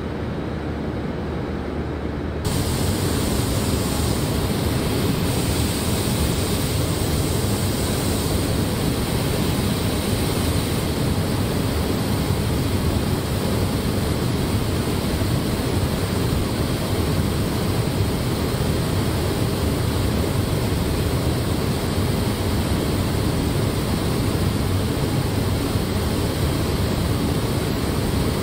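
Steady rushing noise of paint-shop machinery in a car body plant, with no distinct events. It steps up louder and brighter about two seconds in and then holds even.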